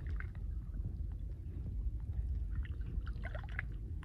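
Shallow muddy water sloshing and gurgling around a person's body and arm as he feels down into a burrow underwater, over a steady low rumble.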